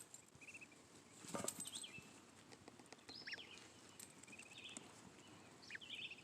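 Goslings peeping faintly: scattered short high-pitched peeps, some falling in pitch, with one brief rustle about a second and a half in.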